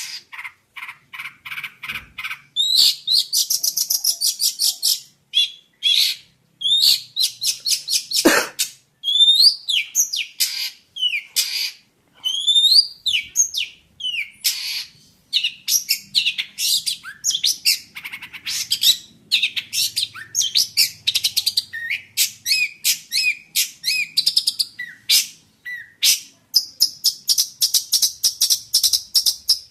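Long-tailed shrike (jentet) singing a long, varied song of rapid repeated chips, buzzy trills and short rising and falling whistled notes, with no pause.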